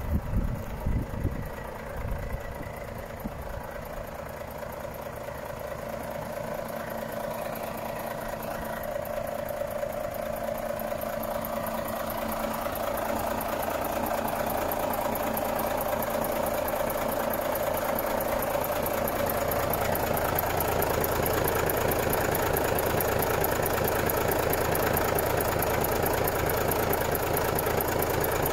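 Volvo FH 460 truck's 13-litre straight-six diesel idling steadily, growing louder through the first two thirds. Wind buffets the microphone briefly at the start.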